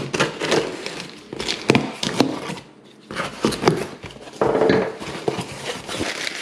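Folding knife slitting the packing tape on a cardboard shipping box in a series of short scraping strokes, then the cardboard flaps pulled open and the plastic-wrapped contents crinkling.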